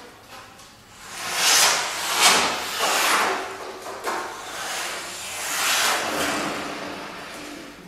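Saxophone quartet of soprano, alto, tenor and baritone saxophones playing swells of breathy, hissing air noise rather than clear notes, with faint low pitches underneath. The swells rise and fade several times, the loudest about one and a half to three seconds in, with another near the six-second mark.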